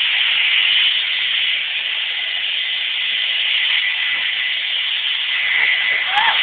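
Hair dryer (blow dryer) running steadily: a constant rushing hiss with a faint steady whine in it.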